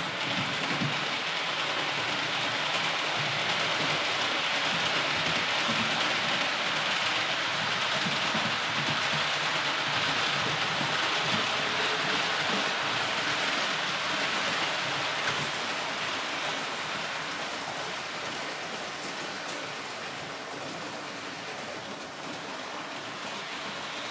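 H0-scale model train running on the layout, its wheels rolling on the rails with a steady hiss and rattle over a low rumble. It grows louder over the first few seconds and fades through the second half.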